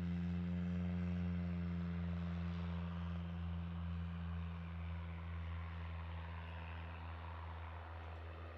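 Light propeller aircraft passing and moving away: a steady low propeller drone with a stack of engine tones, slowly fading.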